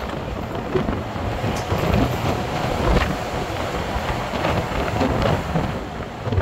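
Moving double-decker tour bus: steady engine and road rumble, with wind buffeting the microphone in irregular low gusts.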